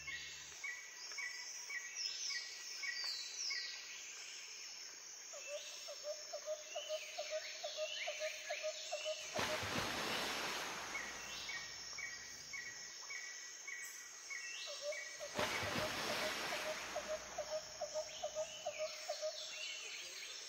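Birdsong ambience: several birds chirping in runs of short repeated notes and quick downward-sweeping calls. Two gusts of rushing noise come through, about nine and fifteen seconds in, each lasting a second or two.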